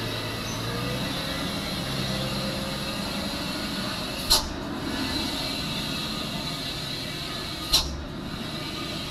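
A steady mechanical hum with a hiss over it, broken by two sharp clicks, one a little past four seconds in and one near the end.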